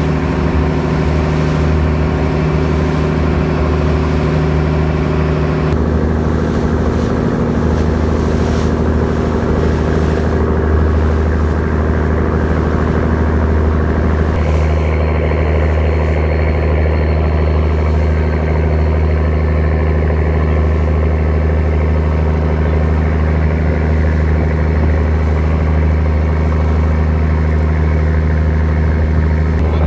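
Small fishing boat's engine running steadily while under way, with wind and water rushing past the hull. The engine note shifts slightly twice.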